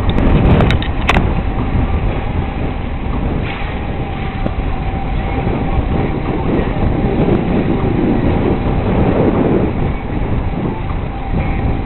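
A vehicle driving over a rough dirt track, heard from inside: a steady engine and road rumble with rattling, and a few sharp knocks in the first second or so.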